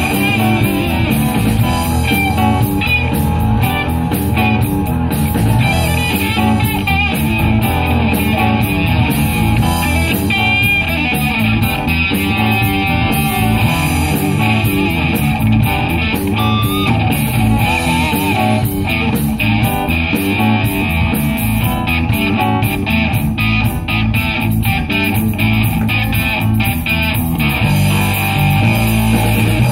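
Live country-rock band playing an instrumental passage without singing: electric guitar, bass guitar and drums, steady and loud.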